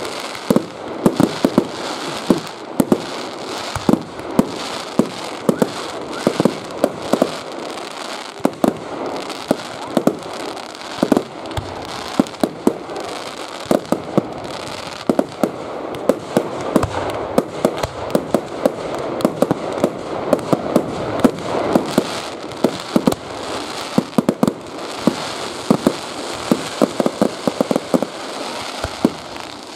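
Aerial fireworks bursting in a fast, irregular run of sharp bangs, sometimes several in quick succession, over a continuous noisy haze.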